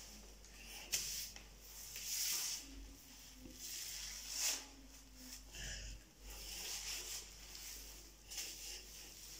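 Hands rubbing shampoo through long wet hair: soft, irregular squishing and rustling strokes.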